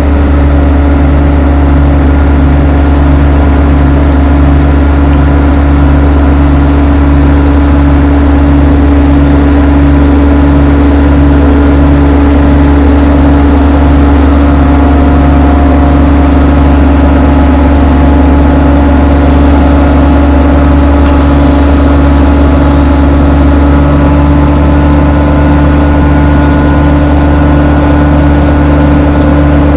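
Erjofant wood-chipper machine's engine running steadily and loudly with a low hum and a regular throb that smooths out about three-quarters of the way through, while its raised bin tips wood chips out, a hiss of falling chips through the middle.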